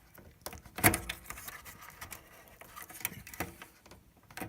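Scattered clicks and knocks of hands working the plastic clip and connector behind a car headlight, the sharpest knock about a second in.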